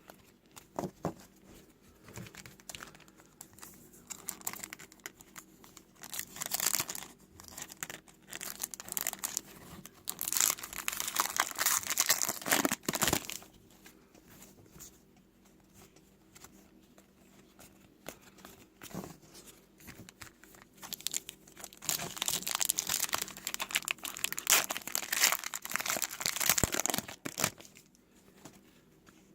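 Trading card pack wrappers being torn open and crinkled, in three spells of rustling with quieter card handling between; the longest spell comes near the end.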